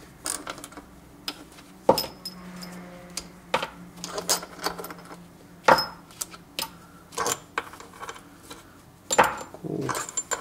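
Steel bolts from a Toyota 2.2-litre engine's balance shaft housing being pulled out by hand and set down on a pile on the bench. They make an irregular string of sharp metallic clinks, each with a brief ring.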